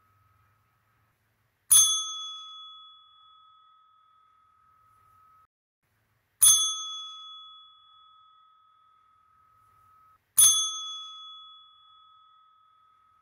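A bell struck three times, about four seconds apart; each ding rings on with a clear tone and fades away over three or four seconds.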